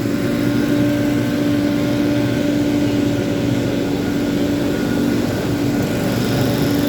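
Small engine of working grounds machinery running steadily at a constant pitch.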